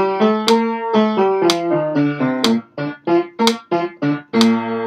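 Piano playing a vocal warm-up: a major scale in held, joined notes, then a detached arpeggio of short, separated notes.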